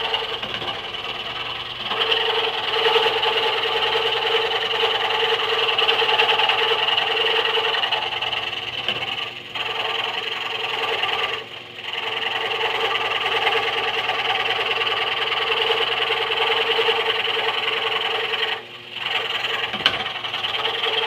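Harbor Freight scroll saw running at slow speed, its reciprocating blade cutting through a thin wooden ornament blank. A steady mechanical running sound that drops off briefly a few times, about halfway through and again near the end.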